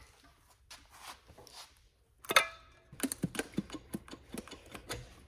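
Metal-on-metal clinks and knocks as the aluminium cam housing and cylinder head are worked loose and lifted off a Porsche GT3 flat-six engine, with one sharp ringing clank about two seconds in and a quick run of smaller knocks after it.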